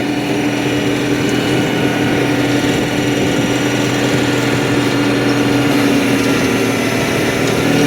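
Motor-driven machine running steadily at a constant pitch, winding down near the end.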